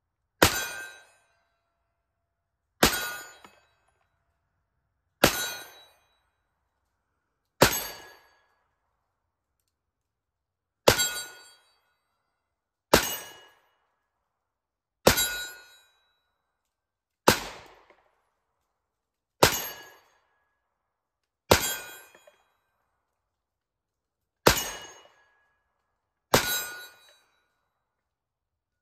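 Rost Martin RM1C 9mm compact pistol fired in slow single shots, twelve sharp shots about two seconds apart. Each is followed by a short ringing tail.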